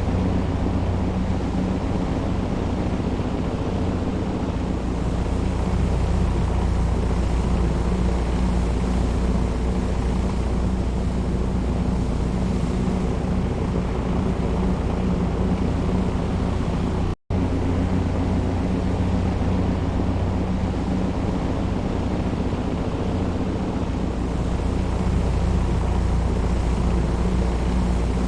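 Jet airliner engine hum: a steady low drone with a few steady hum tones over a broad rushing noise. The sound drops out for an instant about 17 seconds in, then carries on unchanged.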